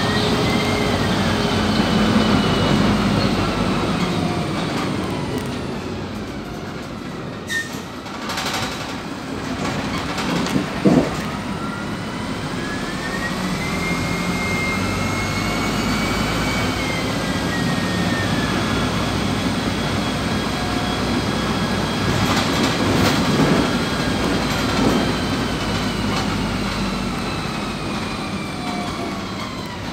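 Inside a moving PAZ 320414 bus: the drivetrain whine rises as the bus speeds up and falls as it slows, over road rumble. A few knocks and rattles from the body come through along the way.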